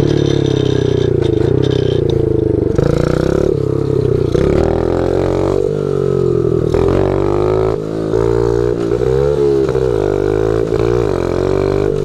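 A small 50cc pit bike engine running while being ridden, its pitch dipping and rising several times as the throttle is eased off and opened again, most noticeably in the second half.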